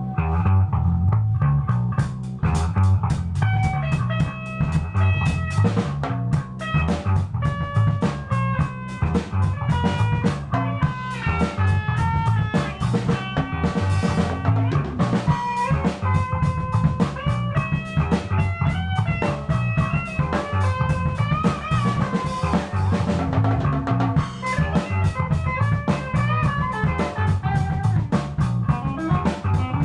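Rock band jamming: drum kit with bass drum and rimshots keeping a steady beat under electric guitar and bass guitar playing a riff-driven instrumental.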